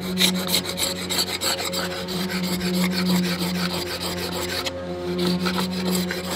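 Hand paint scraper rasping old antifouling paint off a fibreglass boat hull in rapid repeated strokes. The thick, patchy antifoul is being scraped back to an even surface before sanding. A steady low hum runs underneath.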